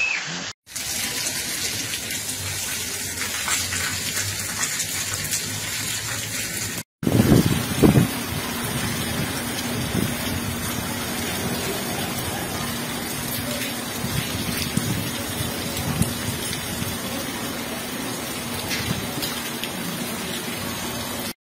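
Heavy rain pouring down, a dense steady hiss of falling water, with a few louder thumps about seven to eight seconds in.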